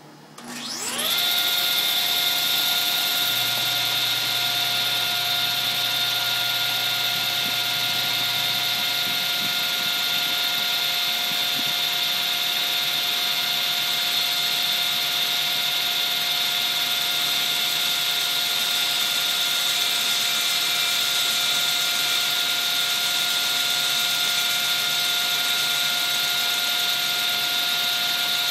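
Table saw switched on, its motor spinning the blade up to full speed in about a second, then running steadily with a high whine and hiss.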